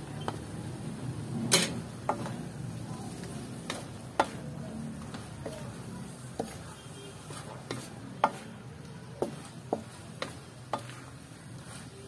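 Wooden spatula stirring and scraping food around a metal wok during a stir-fry, with irregular sharp knocks as it strikes the pan, roughly one every second; the loudest knock comes about one and a half seconds in.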